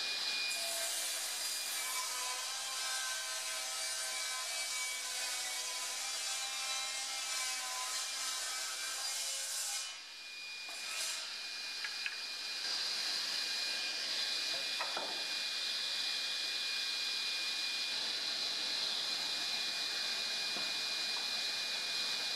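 Sliding table saw ripping a thick hardwood board for about ten seconds, a rough cutting noise over the blade's steady high tone. After a brief dip the blade spins on freely with a steady high tone and hiss, with a few light knocks of boards being handled.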